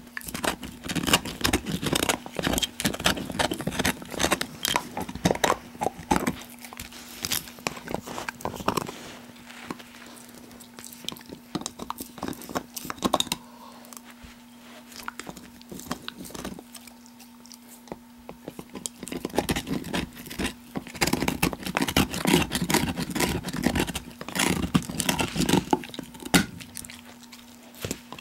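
Australian Cattle Dog (Blue Heeler) chewing and crunching on a big bone close up. The crunching is dense for the first third, eases to occasional bites for about ten seconds midway, then picks up again.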